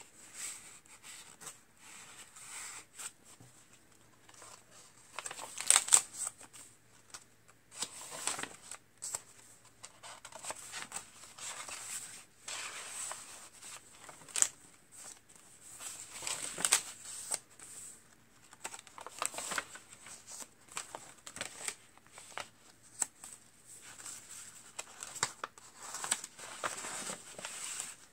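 Paper pages of a spiral-bound journal being turned and handled: irregular rustles and swishes of paper, with a louder swish about six seconds in.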